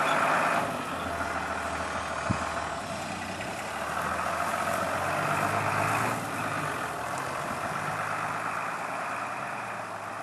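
New Holland tractor's diesel engine running steadily as it drives with a round straw bale raised on its front loader, easing off slightly about six seconds in. A single sharp click about two seconds in.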